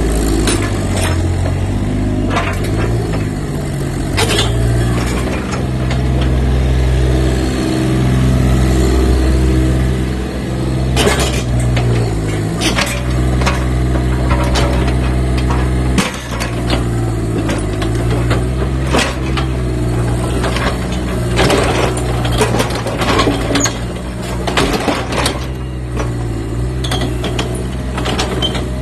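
Komatsu mini excavator's diesel engine running steadily, its pitch shifting a few times, with repeated sharp knocks and clanks.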